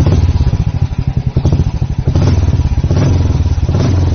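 Royal Enfield Classic 350 BS6's single-cylinder engine running, its exhaust giving a steady, even thump of low pulses, with a few slightly sharper blips in the second half.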